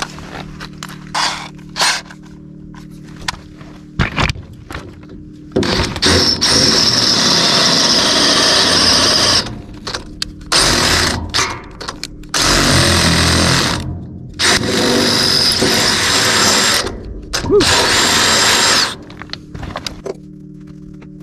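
Cordless drill with a twist bit boring into the steel corner of a shipping container, running in several bursts of a few seconds each with short pauses between. A few light clicks come first.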